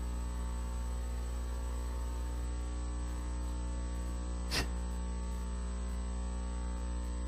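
Steady electrical mains hum, with one brief faint sound about four and a half seconds in.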